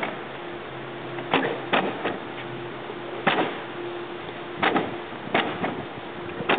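Plastic folding stadium seats clacking shut, about six sharp knocks at uneven intervals, over a steady background hum.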